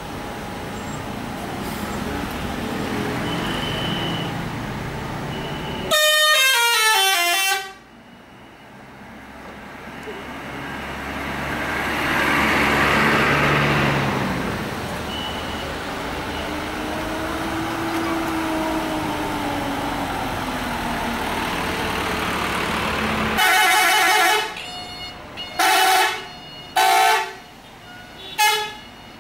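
Tour bus telolet horn: a fast run of stepped, descending notes about six seconds in, then later a blast of about a second followed by three short toots. Between them, vehicle noise swells and fades as traffic passes.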